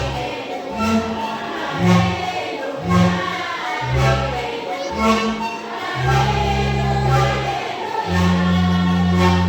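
Band music: voices singing together over a bass line of short, strong notes about once a second, which turn into longer held bass notes in the last couple of seconds.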